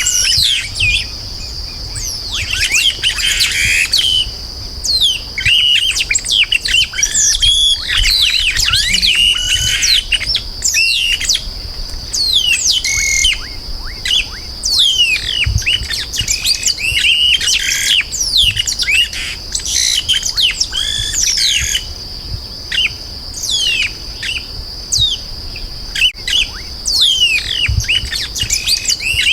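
Chupim-do-brejo, a South American marsh blackbird, singing: a dense run of rapid chirps and sharp downward-sweeping whistled notes that keep going without a break, over a steady high-pitched hiss-like drone.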